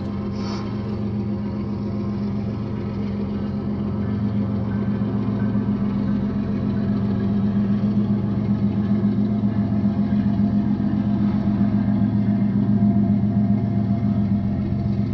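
Diesel locomotives of a BNSF freight train approaching, a steady low engine drone that grows steadily louder.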